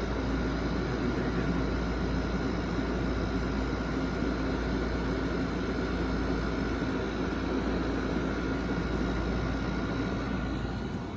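Window air conditioner running: a steady hum of compressor and fan with a constant tone over it.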